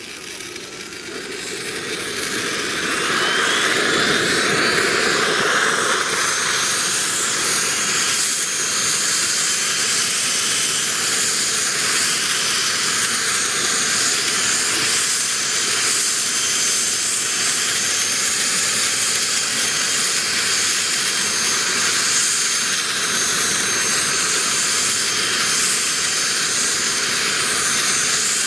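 Small model gas-turbine engine of a scale Lama SA 315B RC helicopter spooling up: a whine climbs steeply in pitch and the sound grows louder over the first few seconds. It then runs steadily with a high whine over a hiss.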